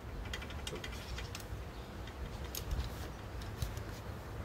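Faint handling sounds of camping gear being packed into a motorcycle cargo trailer: scattered light clicks and taps with soft rustling, over a low steady rumble.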